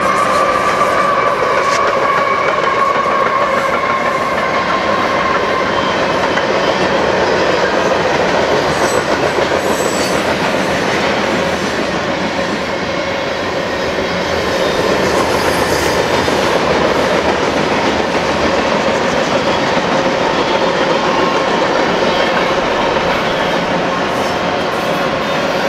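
Union Pacific freight train rolling past close by: steel wheels clattering over the rail with a steady, high-pitched wheel squeal. A higher squeal fades away over the first few seconds.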